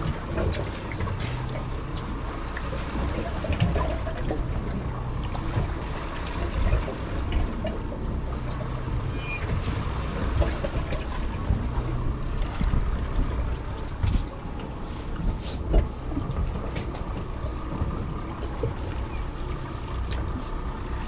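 Twin outboard motors running at slow trolling speed, a steady low rumble with water washing past the hull. A few sharp clicks and knocks come about two-thirds through.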